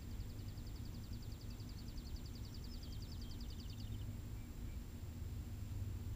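Outdoor backyard ambience: a steady low rumble under a high, rapid trill of even chips. The trill lasts about four seconds and drops slightly in pitch at the end.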